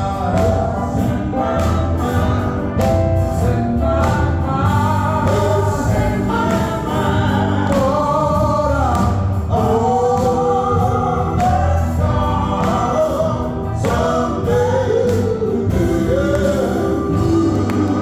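Live male gospel quartet singing lead and harmony over a band, with electric bass guitar carrying a steady low line under the voices.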